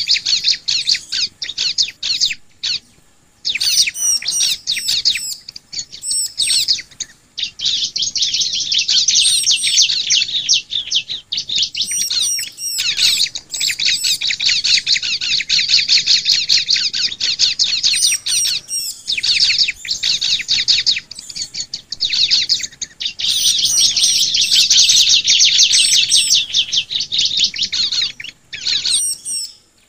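Bar-winged prinias (ciblek) singing: long, fast, chattering trills of rapidly repeated high notes, broken by short pauses and separate thin, higher notes.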